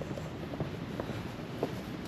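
Steady low road rumble inside a moving vehicle's cabin, with a few faint ticks.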